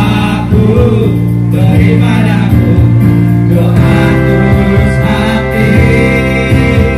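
Live amplified music: people singing into microphones over a keyboard accompaniment.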